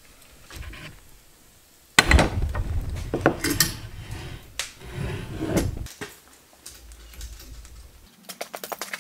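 Metal tube frame of a storage compartment door set down on a plywood workbench: a sudden clank about two seconds in, then irregular metal clattering and scraping against the wood for a few seconds.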